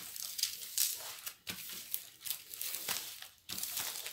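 Transparent plastic protective film on a diamond painting canvas crinkling as the canvas is handled, in irregular crackles.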